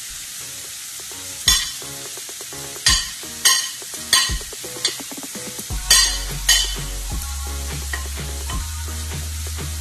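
Onions and tomatoes frying with a steady sizzle in a non-stick pan, while a spoon clinks sharply against the plate and pan about seven times as spice powders are scraped in and stirred.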